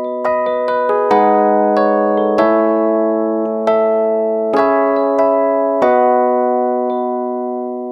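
Background music: electric piano playing slow, sustained chords, a new chord struck about every half second to second.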